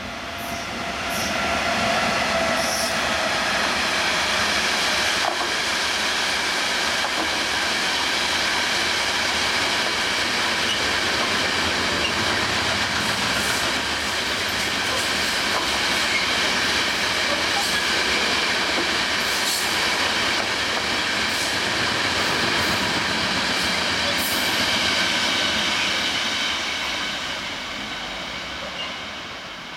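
Electric-hauled freight train of covered hopper wagons rolling past close by, steel wheels on the rails giving a steady rumble with several high ringing tones and occasional clicks. It swells about two seconds in and fades near the end as the last wagons go by.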